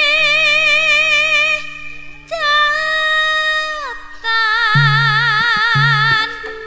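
A woman sings a Javanese campursari song in three long held notes with a wavering vibrato. The second note slides down at its end and the third is lower. Under her voice run steady low tones from the backing band, with short low notes near the end.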